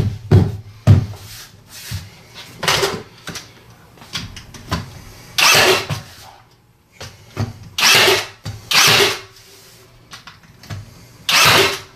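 Power tool fastening a wooden stair tread down: a few sharp knocks about the first second, then about five short hissing bursts spread across the rest.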